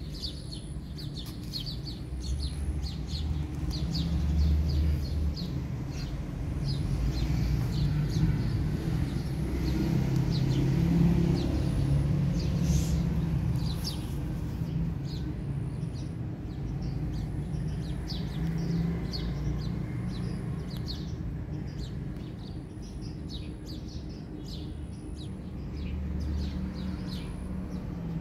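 Outdoor ambience: birds chirping in short, scattered calls over a low rumble that swells and fades several times, with a faint high note repeating about once a second.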